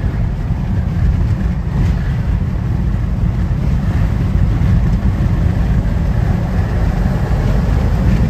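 Steady road and wind noise inside a car driving at highway speed: a heavy low rumble with tyre hiss from the wet road.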